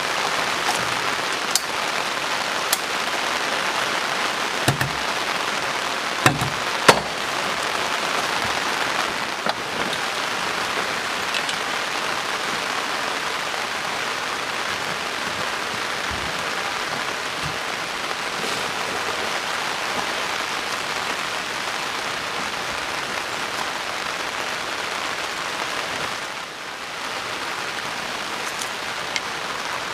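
Heavy rain falling steadily, with a few louder single drops striking close by.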